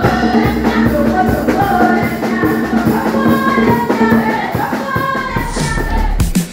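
Upbeat music with singing over a steady beat of drums and shakers; the sound changes near the end.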